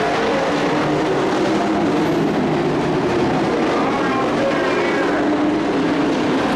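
Several dirt-track race truck engines running at racing speed, making a steady, loud drone of mixed engine notes that rise and fall as the trucks accelerate and pass.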